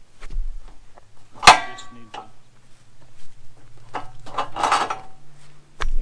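A sharp metallic clang with a ringing tail about a second and a half in, from the steel log clamp and bed of a Woodland Mills sawmill being worked. Near the end come a scraping rush and a thump as the red cedar cant is turned over on the bed.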